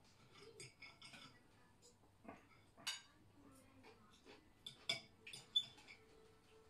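Knives and forks clinking and scraping on dinner plates as people eat, with a few sharper clinks about three seconds in and again around five seconds.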